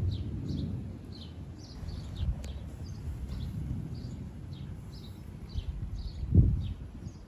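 A small bird chirping over and over, about three short high chirps a second, over a low rumble of wind on the microphone. A single thump about six seconds in.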